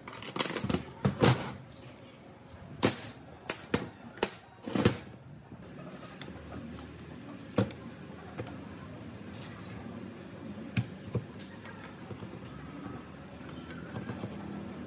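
Irregular sharp knocks and clicks of hard objects being handled: a quick cluster in the first second, several more over the next four seconds, then a few spaced-out ones.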